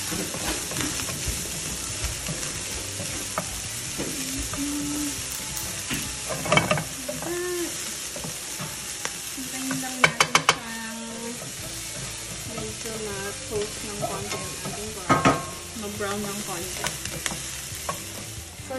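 Chopped garlic, chili, scallion and cilantro sizzling in olive oil in nonstick frying pans, stirred and scraped with a wooden spatula. A quick run of four sharp knocks about halfway through is the loudest sound.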